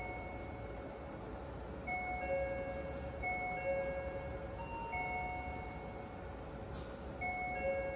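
A railway platform train-approach indicator sounding its warning chime, a two-note electronic chime repeated every second or two. It signals that a train is arriving soon.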